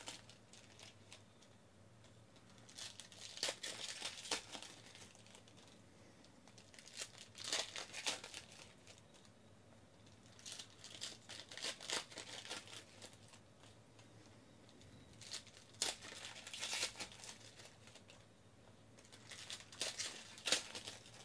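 Foil wrappers of 2014 Panini Elite Extra Edition baseball card packs being torn open and crinkled. This comes in five short bursts about four seconds apart, one pack after another.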